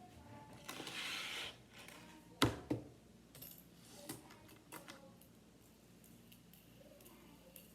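Fidget toys being handled: a brief rustling scrape, then a sharp clack followed quickly by a second, and a few lighter clicks and taps.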